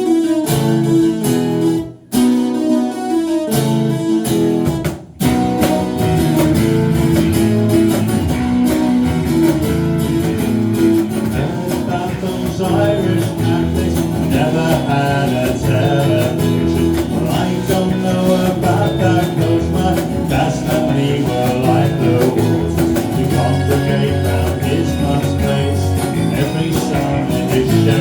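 Live music: a strummed guitar intro to a song, with two short stops in the first five seconds, then steady playing.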